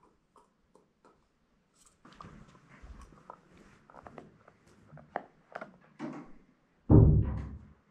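Beagle puppy gnawing a chew stick: small irregular clicks and crunches, starting about two seconds in. A loud low thud about seven seconds in is the loudest sound.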